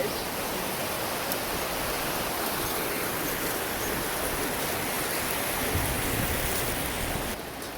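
Steady rushing of stream water running under a footbridge, dropping away near the end.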